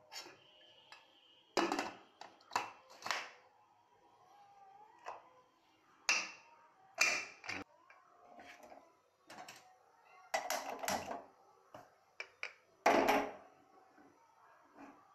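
A series of irregular metallic clanks and knocks, some ringing briefly: an aluminium pressure cooker being set on a steel gas stove and its lid put on and locked.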